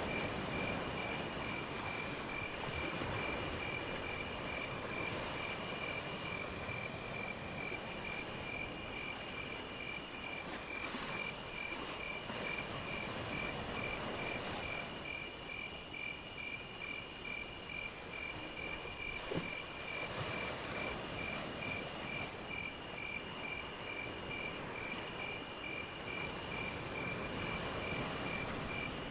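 Insects chirping: one cricket gives a steady, fast pulsing chirp on a single pitch, while a higher, shriller trill comes in repeated phrases of a second or two with short breaks. Underneath runs a steady rushing background.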